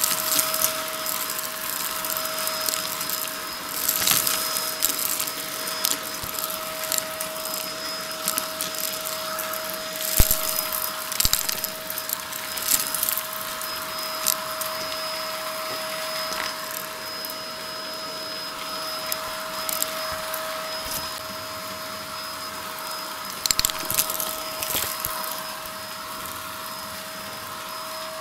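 Shark Navigator upright vacuum running with a steady whine while its hose wand sucks debris off a shaggy rug. Small bits rattle and click up the hose in clusters, thinning out near the end as the rug comes clean.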